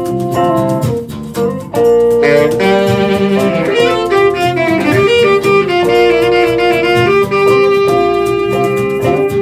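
Instrumental break from a small band: electric bass, electric and acoustic guitars and hand percussion. From about two seconds in, a lead line of long held notes rides over the band.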